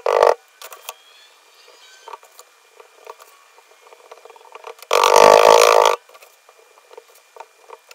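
Last few strikes of a hand rammer packing foundry sand into a wooden flask, then faint clicks and pats as the sand is pressed down by hand. About five seconds in, a loud scraping rush lasting about a second as sand is scooped in a plastic bucket.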